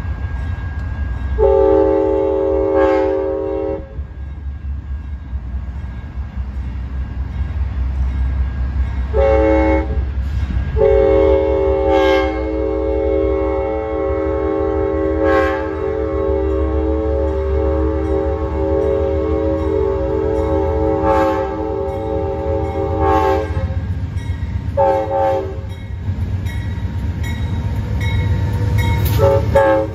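Amtrak GE Genesis diesel locomotive sounding its air horn for a grade crossing as it approaches: several blasts, one held for about twelve seconds, over the low rumble of its diesel engine. The rumble grows louder near the end as the locomotive reaches the crossing.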